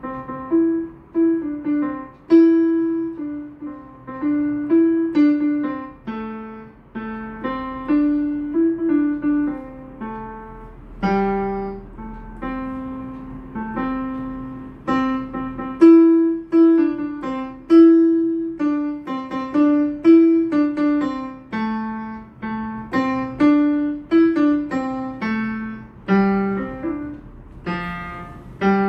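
Yamaha PSR-E473 portable keyboard playing a melody in a piano voice: a steady run of notes, each struck and then fading, with a few chords.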